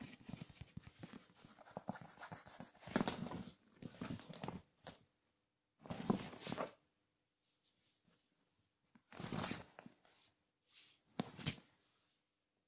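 Rustling and scratching of suitcase fabric as a Scottish fold cat shifts and paws about inside the suitcase lining. It comes in irregular bursts, with a quick run of small clicks in the first couple of seconds and a handful of louder scuffles spread through, separated by quiet gaps.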